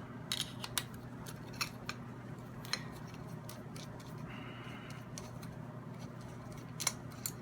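Scattered light metallic clicks and taps of a hex key and small steel cap screws being worked out of an air rifle's Weaver rail, a dozen or so irregular ticks.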